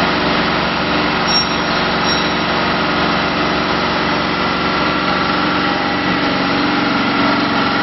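GD150 rebar end upset forging machine running with a steady, loud motor hum.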